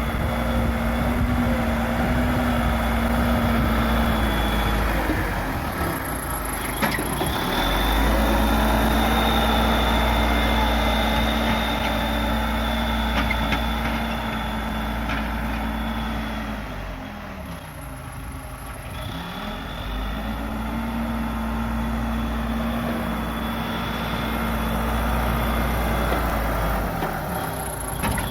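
Case 580 Super L backhoe loader's diesel engine working at high revs. The revs drop and climb back about six seconds in and again about seventeen seconds in, then dip once more near the end.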